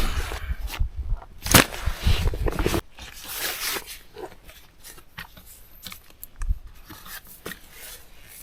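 Rustling, clicks and knocks of gear being handled close to the microphone, with a sharp knock about a second and a half in and a low rumble that stops suddenly near the three-second mark, then quieter scattered ticks.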